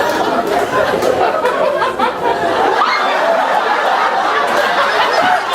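Audience laughter mixed with several voices talking over each other.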